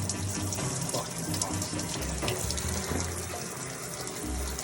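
Hot engine oil gushing steadily out of the drain hole of a 2020 Ram 1500 EcoDiesel's oil pan and splashing, with a bass-heavy music track underneath.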